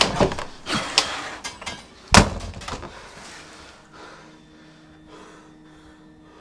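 A door being handled: a run of loud bangs and knocks, the loudest just after the start and about two seconds in, dying away to a faint steady hum.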